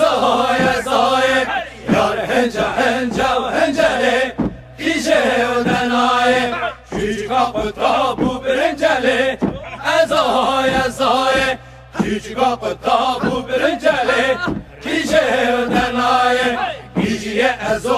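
Background music: a song in Kurdish, a voice singing short repeated phrases in a chant-like line over a steady low accompaniment.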